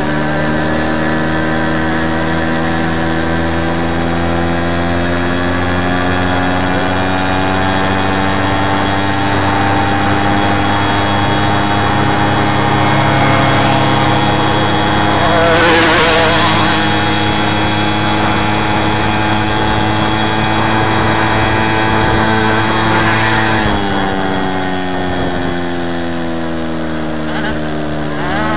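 VeloSolex moped's small two-stroke engine running steadily under way. Its pitch sags slowly, drops clearly about three-quarters of the way through, and picks up again at the very end. A brief loud rush of noise comes about halfway through.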